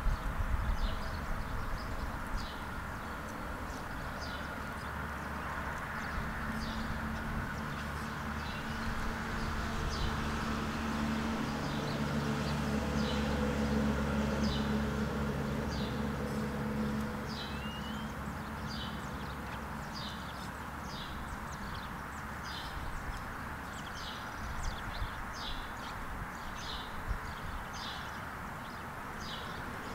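Outdoor ambience: a small bird chirping again and again, with short high chirps about once or twice a second that come more often in the second half. Under it a low hum swells to its loudest around the middle and fades away.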